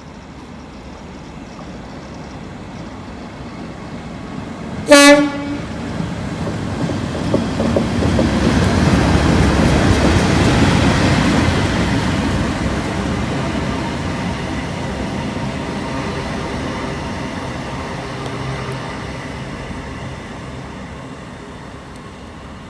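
Class 37 diesel locomotive hauling a Class 320 unit: one short horn blast about five seconds in, then the train approaches and passes, its engine and wheel noise swelling to loudest around ten seconds and fading away.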